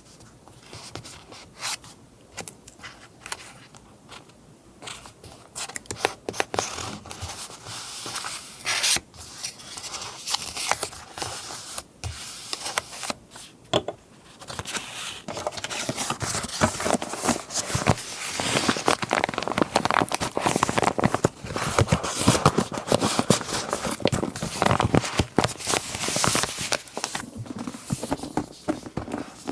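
Close-up paper rustling and crinkling as papers are handled for a collage, with scraping and crackling. It is sparse at first and grows busier and louder about halfway through.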